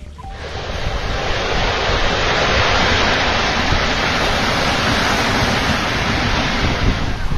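Steady loud rushing noise of a cliff collapse, soil and chalk sliding down the cliff face, building over about a second and then holding, with wind on the microphone.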